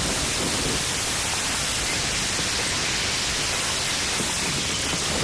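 Loud, steady static-like hiss of noise that starts suddenly.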